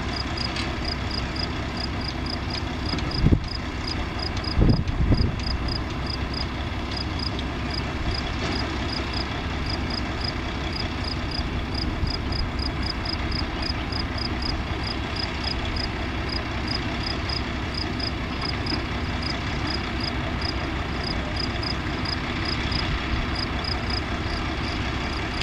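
Workover rig machinery, its engine running steadily, with a faint regular high-pitched ticking throughout. A few heavy low thumps come about three and five seconds in.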